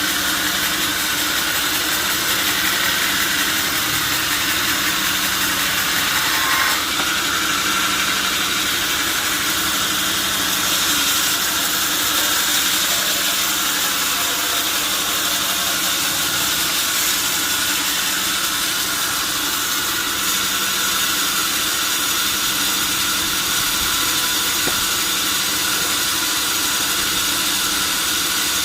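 Sawmill saw machinery running steadily, a constant loud mechanical noise with a low hum under a wide hiss.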